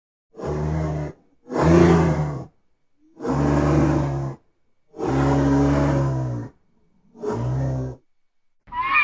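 Southern white rhinoceros giving five low, pitched calls, each about a second long, separated by short silences.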